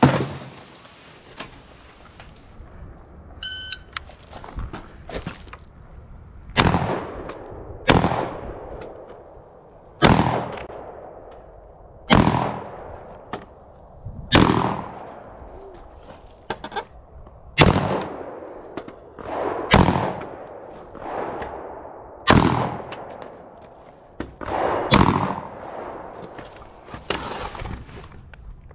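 AR-15 carbine (Rock River Arms CAR A2) firing slow, deliberate single shots from behind a barricade: about a dozen shots, one every two seconds or so, each with an echo tail. A short electronic beep comes a few seconds before the first shots.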